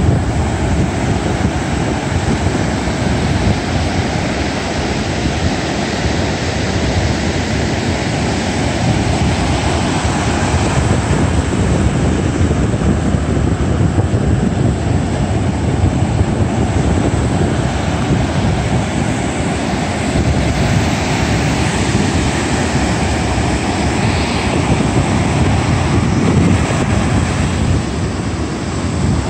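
Surf breaking and washing up a sandy beach, a steady rush without let-up, mixed with wind noise on the microphone.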